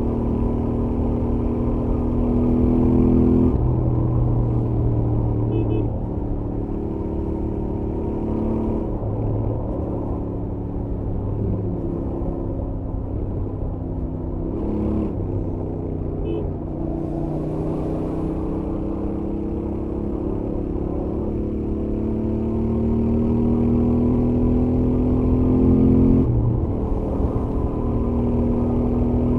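Stock Royal Enfield Interceptor 650's 648 cc parallel-twin engine and stock exhaust under way at highway speed, heard from the rider's helmet. The engine note climbs steadily with throttle and drops sharply a few times, over a constant low rumble.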